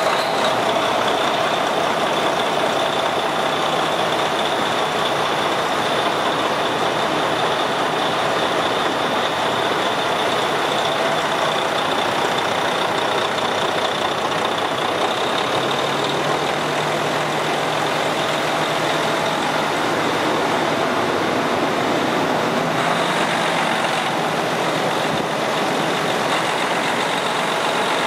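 Diesel engine of a 2014 Freightliner Cascadia 113 truck idling steadily, with a steady high whine over the running sound.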